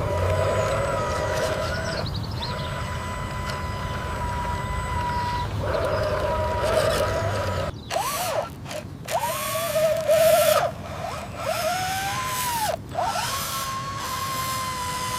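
A small electric motor whining, its pitch gliding up and down several times in the second half, with a few abrupt cut-offs.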